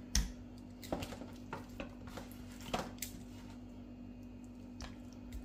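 Kitchen tongs and pieces of beef short rib knocking against a ceramic plate on a kitchen scale as the ribs are set down: a few light knocks and clinks, the loudest just after the start.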